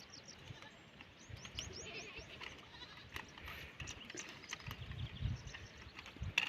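Faint outdoor animal calls: a quick run of short, high, falling chirps about a second in, then scattered chirps, over low irregular bumps.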